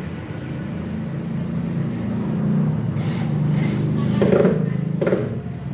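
A steady engine drone, like a road vehicle running close by, growing to its loudest about four seconds in. Short hissing and clattering noises come in around the middle.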